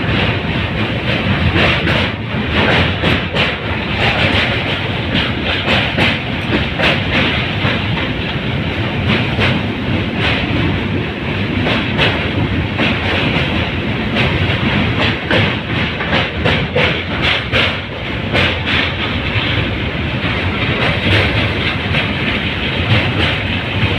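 Passenger train running, heard from aboard: a steady rumble with rapid, irregular clacking of the wheels over the rail joints.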